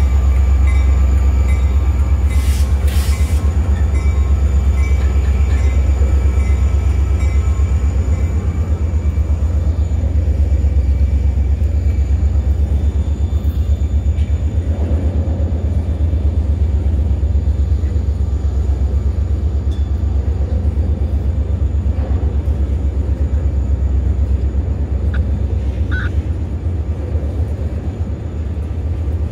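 A freight train's flatcars loaded with long rails rolling past with a steady low rumble.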